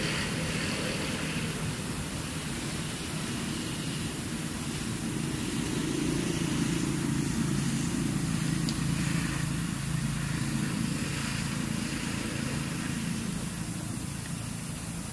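A low, steady engine hum, like a motor vehicle, that grows louder about six seconds in and eases off again after about ten seconds, with a faint hiss above it.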